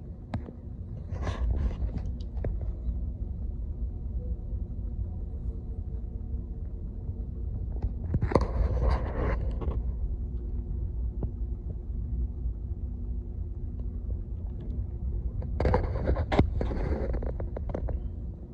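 Steady low rumble and hum of a lifeboat's engine running alongside, with three louder rushing swells: about a second in, around the middle and near the end.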